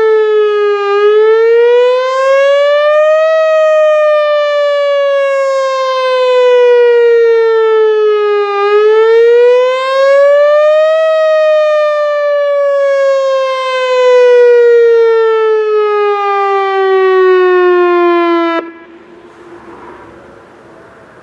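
Whelen Vortex R4 electronic outdoor warning siren sounding a wail tone. The pitch rises quickly, then falls slowly, twice over. It cuts off abruptly near the end, leaving only faint background noise.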